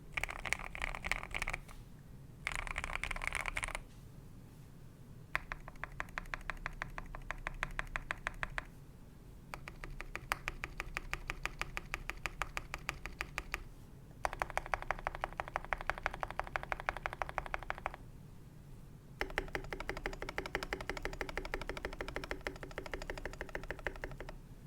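Typing on a custom Next Time 75 mechanical keyboard with lubed Akko Jelly Black linear switches and PBT keycaps. Two short dense flurries of keystrokes come first, then four long runs of fast, evenly paced key presses separated by brief pauses.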